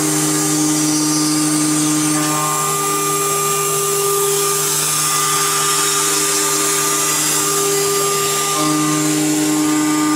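High-speed spindle of a 5-axis CNC machining center cutting a thick aluminium profile: a steady whine of several tones over a hiss of cutting. The tones shift about two seconds in and again near the end.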